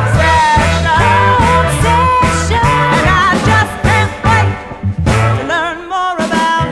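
Soul band recording playing: a melody line that bends in pitch over a steady repeating bass line, thinning out and dropping in level near the end.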